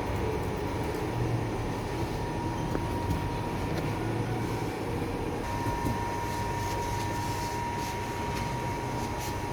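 Steady machine rumble with a thin, constant whine that grows stronger about halfway through.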